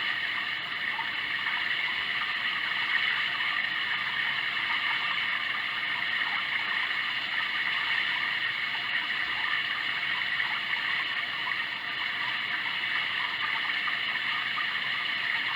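Sound Oasis ambient sound machine playing a steady running-stream water track, an even rushing hiss with no breaks.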